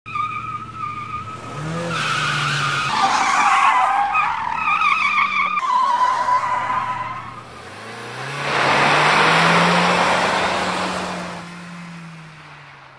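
Sound effects of a car drifting: an engine revving with wavering tire squeal, then a long skidding rush that starts about eight seconds in and fades away near the end.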